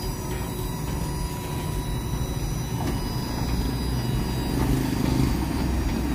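A steady mechanical motor hum with a low drone, growing slightly louder toward the end.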